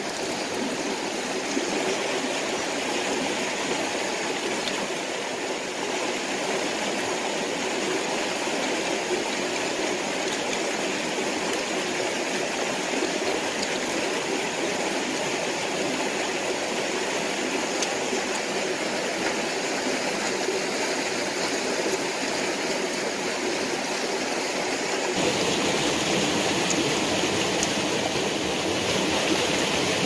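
Shallow river water rushing steadily over rocks, growing a little louder and brighter about 25 seconds in.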